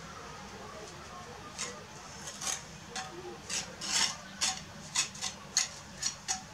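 A mason's steel trowel scraping and clinking as mortar is worked, about a dozen short, sharp strokes. They begin after about a second and a half and come faster in the second half.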